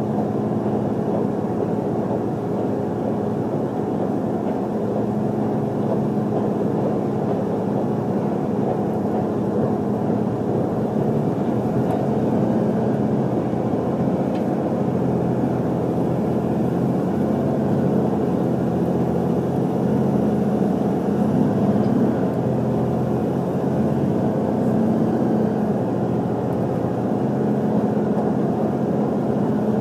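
Steady running noise heard inside a JR HC85-series hybrid diesel railcar under way: a continuous rumble of wheels on rail, with the steady hum of its engine-generator and traction drive. It grows slightly louder about halfway through.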